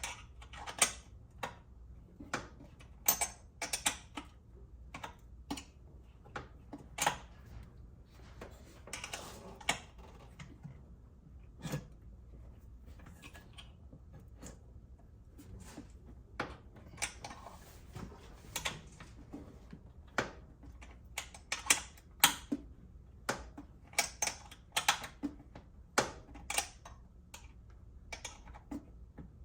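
A wrench working a bolt: irregular sharp metal clicks and taps, with a few short scraping stretches.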